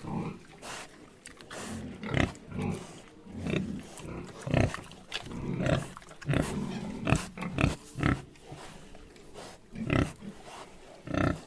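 Pigs grunting: a string of short, irregular grunts, some coming in quick clusters.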